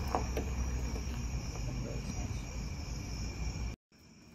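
A steady chorus of crickets chirping, over a low rumbling background. The sound drops out completely for an instant near the end, then the crickets carry on without the rumble.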